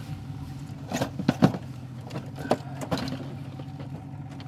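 Gear being rummaged and knocked about in an aluminum boat's floor storage hatch: a cluster of sharp knocks about a second in, then two more a second or so apart, over a steady low hum.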